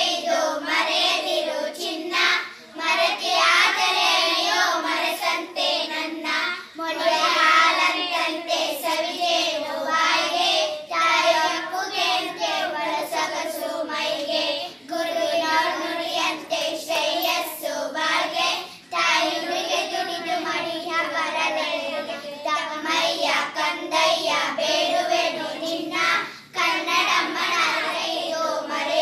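A group of schoolgirls singing a song together, pausing briefly between phrases.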